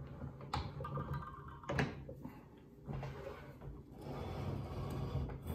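Clicks and knocks from the Wen benchtop mortiser's operating lever and head being worked by hand, sliding it up and down its steel columns: two sharp clicks, then a low rumbling, scraping noise.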